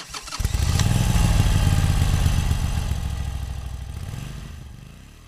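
Motorcycle engine sound effect: after a sharp click, the engine catches about half a second in and runs loud and fast-pulsing, then fades away steadily over the last few seconds.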